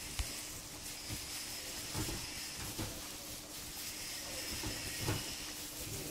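Plastic-gloved hands mixing crushed cornflakes into whipped cream in a bowl, giving a few faint soft squishes and taps over a steady hiss and low hum of room noise.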